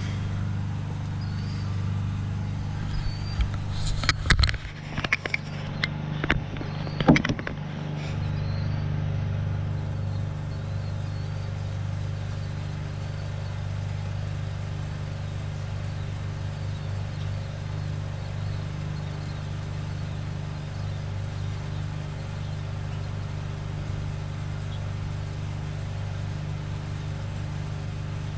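An engine idles steadily throughout. About four to eight seconds in, a cluster of metallic clanks and rattles sounds over it.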